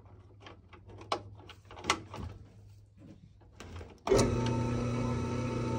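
A few light clicks and knocks of parts being handled at a drill press, then about four seconds in the drill press motor switches on with a sudden start and keeps running steadily.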